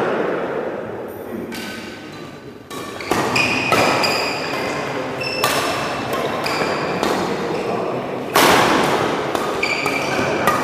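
Badminton doubles rally: rackets smacking the shuttlecock again and again, echoing in a large hall, with short squeaks of court shoes between the hits. The sharpest hit comes a little over eight seconds in.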